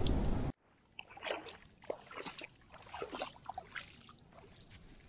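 Water and wind noise by the shallows that cuts off about half a second in, followed by footsteps in sand: a run of short, irregular soft crunches for about three seconds, fading near the end.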